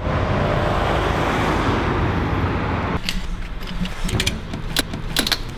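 Steady road traffic noise, then after about three seconds a few sharp, irregular metallic clicks from a ratchet tie-down strap being worked by hand.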